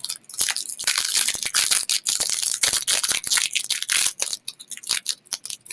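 Crinkly plastic wrapper being handled and opened: a dense run of crackling for about four seconds, then a few scattered crackles.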